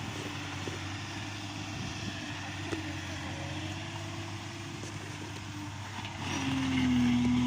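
Backhoe loader's diesel engine running steadily, then growing louder with a stronger, slightly dipping tone about six seconds in.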